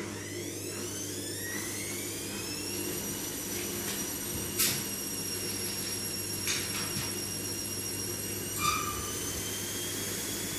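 A small electric motor spins up with a whine that rises in pitch for about three seconds, then runs at a steady high whine over a low hum. A few sharp clicks or knocks cut in, the loudest about halfway through.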